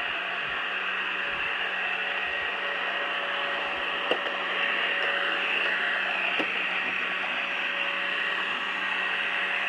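Pure Clean robot vacuum running on carpet: a steady motor whir with a hiss of suction and a constant hum underneath, and two short knocks about four and six seconds in.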